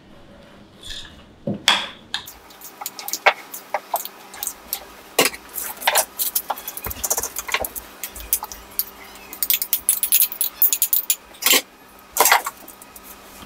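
A spoon clinking and scraping against a bowl and a baking tray while a cheese filling is mixed and spread over thin dough: a run of short, irregular clicks and scrapes, with a few louder ones near the end.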